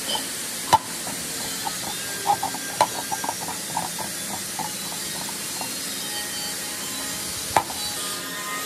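Screwdriver driving screws through rubber feet into a sheet-metal plate: sharp metal clicks and taps, with a run of light clicks about two to four seconds in, over a steady hiss.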